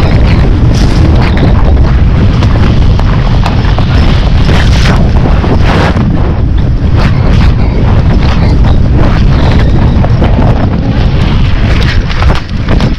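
Wind buffeting the microphone of a rider at full gallop: a loud, steady rumble, with the horse's hoofbeats and gear knocking through it as sudden thuds.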